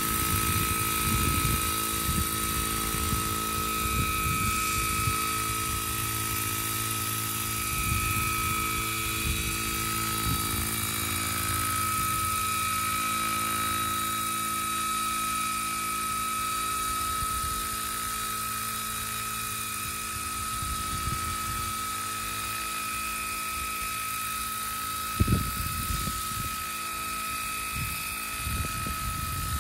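Vario Chinook scale RC tandem-rotor helicopter hovering steadily, a constant high whine over a stack of steady rotor hum tones. Wind gusts buffet the microphone now and then, the strongest about 25 seconds in.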